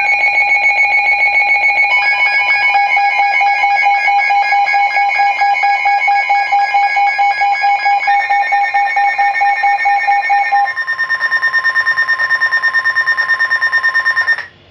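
Emergency alert attention signal for a severe thunderstorm warning: loud electronic alarm tones pulsing several times a second. The pitch changes a couple of times, and the tones cut off abruptly near the end.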